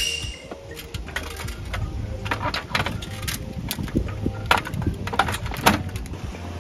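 Irregular clicks and knocks of objects being handled and set down inside a small kei-truck camper cabin, over a low steady hum.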